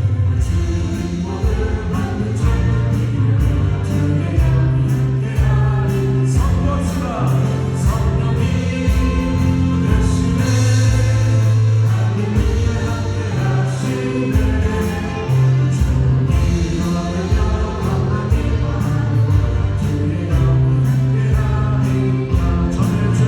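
A worship band playing a contemporary gospel song: a group of singers over keyboards, drums and acoustic guitar, with a steady drum beat.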